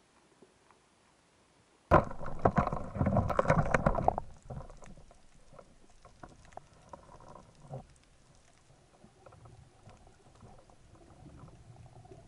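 Water splashing and bubbling right at an underwater action camera, starting suddenly about two seconds in and loudest for about two seconds. It then settles to softer crackling and low rumbling water noise.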